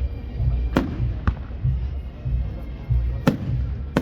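Fireworks going off: sharp bangs, two close together about a second in and a stronger one about three seconds in, over music with a steady pulsing bass beat.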